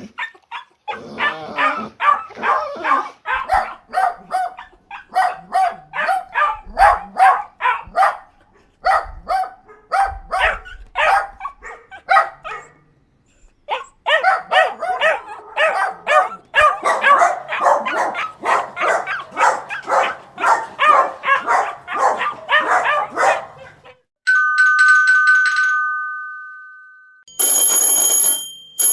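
Dogs barking in rapid, continuous runs, with a short break near the middle. Then a steady two-tone chime fades out over about three seconds, and a bell starts ringing near the end.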